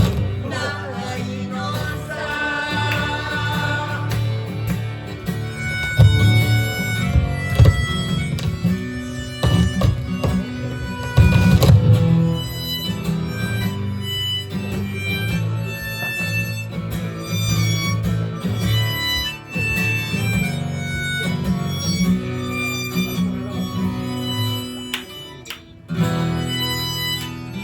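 A band playing an instrumental passage of a song, a held-note melody over a steady accompaniment, with no singing.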